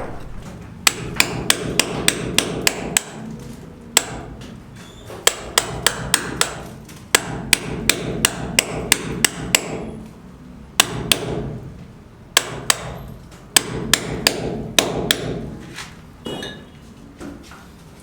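A hand hammer striking repeatedly in quick runs of about four or five blows a second, stopping and starting several times.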